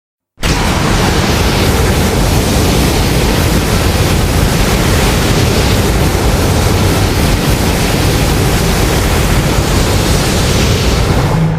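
A loud, steady rushing noise, like a blast of hiss and rumble, from a Godzilla sound effect. It starts suddenly about half a second in and holds level with no clear pitch until it breaks off at the end.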